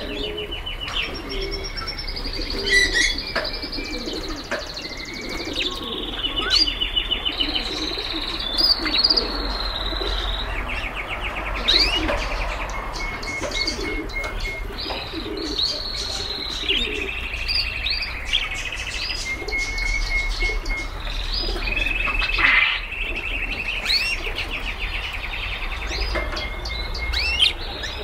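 A room of caged pet birds, budgerigars among them, singing and chirping without pause. Rapid trills and warbling phrases overlap one another.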